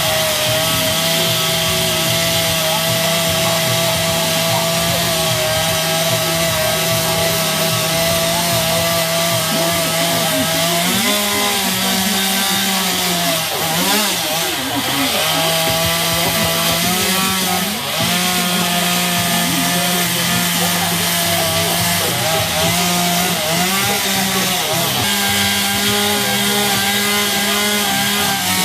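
Chainsaw running steadily as it carves a wooden log; from about the middle its engine pitch wavers up and down as the chain works the wood, then settles again near the end.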